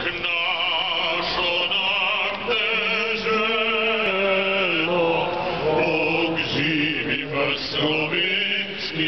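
Singing in long held notes with a strong vibrato, a song performed to the crowd from the stage over loudspeakers.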